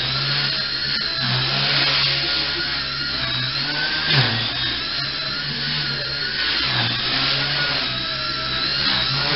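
Walkera Super CP micro RC helicopter in flight, its electric main motor and rotor making a steady high whine. The pitch wavers with throttle and dips briefly about four seconds in and again near seven seconds.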